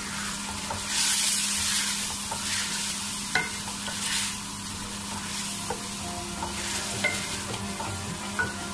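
A wooden spoon stirring potatoes, peas and tomatoes through hot spiced oil in a metal pot, the sizzle swelling in surges with the strokes, with a few light knocks of the spoon against the pot.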